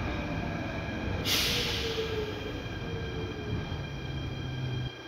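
Athens Metro electric train heard from inside the car as it slows to a stop: a steady rumble with a whine that slowly falls in pitch, a short burst of hiss about a second in, and the rumble dropping away suddenly near the end as the train halts.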